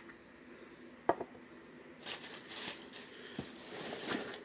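A single light knock, then paper or packaging rustling and crinkling as items are handled and rummaged through in a box.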